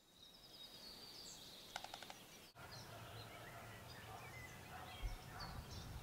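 Faint wild birdsong: a brief rapid rattle of taps about two seconds in, then, after a sudden break, a scatter of small songbirds chirping.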